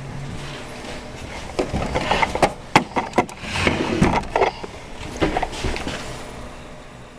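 A run of sharp clicks and knocks from handling, bunched between about a second and a half and six seconds in, over a faint steady background that fades near the end.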